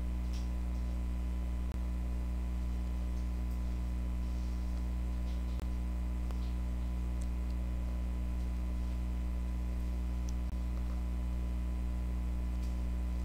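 Steady electrical hum with a stack of overtones, with a few faint ticks scattered through it as a stylus writes on a touchscreen.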